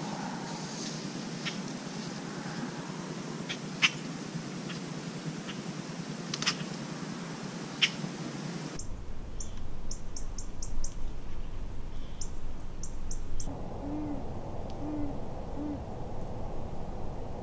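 Light clicks and taps from a compound bow and gear being handled. After an abrupt change, a run of short high chirps from a small bird, then three short low hoots from an owl, about a second apart.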